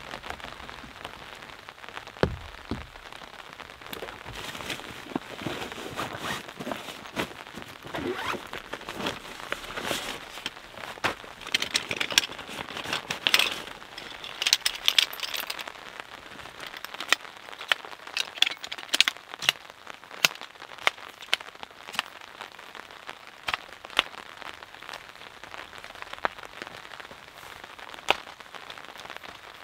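Rain falling on a tarp: a steady hiss with many sharp taps of drops. The taps are thickest and loudest in the middle, where gear is being handled and rustled under the tarp.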